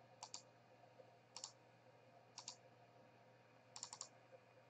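Computer mouse clicking quietly: pairs of sharp clicks about a second apart, then a quick run of four clicks near the end.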